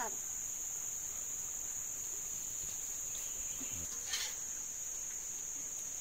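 Forest insects droning steadily in one high-pitched band, with a faint short knock about four seconds in.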